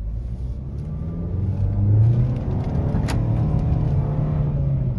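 Nissan MR20DD 2.0-litre four-cylinder engine running, its pitch rising about a second and a half in and then slowly easing. The engine is now starting and running normally after the VIN J relay connection was repaired, curing the P0626 crank-no-start fault. A single sharp click comes about halfway through.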